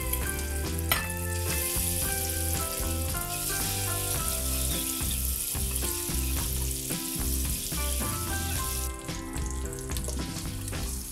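Spice-coated hard-boiled eggs sizzling as they fry in hot oil in a kadai, with a sharp crack about a second in; the sizzle fades about nine seconds in. Background music plays throughout.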